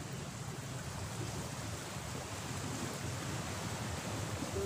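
Steady rush of wind and small sea waves against shore rocks, an even noise with no distinct events.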